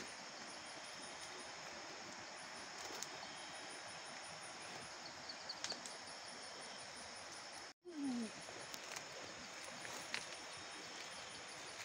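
A steady chorus of night insects: high chirps repeating in short groups over a faint hiss. There are a few faint clicks, and the sound cuts out briefly about eight seconds in.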